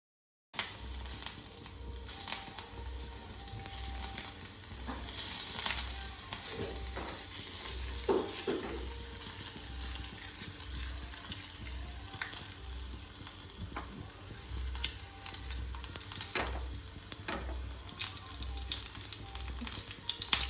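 Food frying in a pan: a steady sizzle with scattered crackles and pops, starting abruptly about half a second in.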